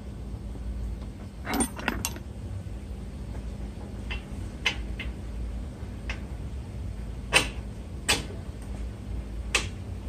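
Sharp metallic clinks and knocks from parts and tools being handled at a car's front steering knuckle during CV axle reassembly. There is a quick cluster about a second and a half in, then single knocks every second or so, over a steady low hum.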